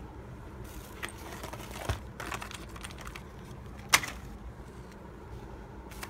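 A run of light clicks and rustling, then one sharp click about four seconds in, over a steady low hum.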